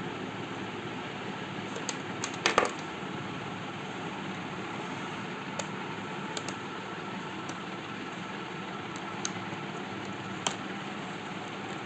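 Small clicks and taps of hands handling laptop parts and tools, with a cluster of louder clicks about two and a half seconds in and a few single ones later, over a steady hum and hiss.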